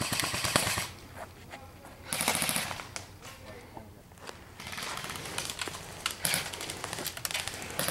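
Airsoft guns firing rapid bursts: two short bursts, then a longer stretch of quicker, scattered shots from about halfway through.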